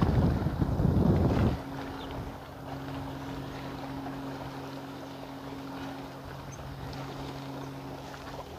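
Wind gusting on the microphone for about a second and a half while a canoe moves along the river, then a steady low hum with faint light water sounds.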